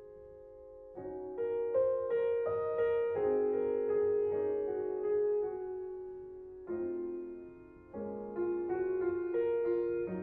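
Slow piano music: single notes and chords that strike and ring away, fading to a lull in the first second before the playing picks up again.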